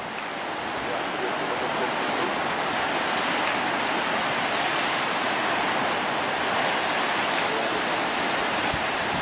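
Steady rushing noise of breaking waves and surf, building slightly over the first second or two and then holding even.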